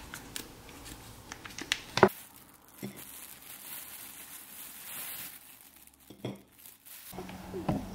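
Foil seasoning sachet crinkling as it is squeezed out over a paper instant-noodle cup, with one sharp knock about two seconds in and a few softer knocks later.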